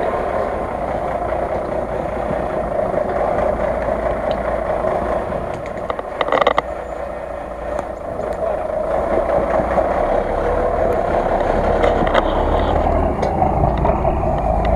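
Engine of a lifted Jeep Cherokee monster off-roader on giant tyres, running steadily as it drives through snow and getting louder in the second half. A brief loud clatter comes about six seconds in.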